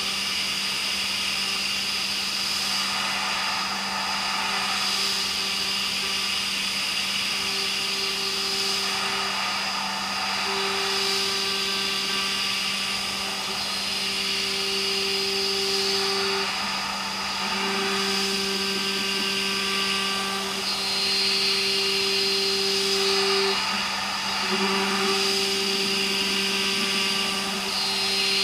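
CNC machining centre milling hardened H13 tool steel: a steady machine hum under a high whine, with a second tone that comes and goes in stretches of a few seconds.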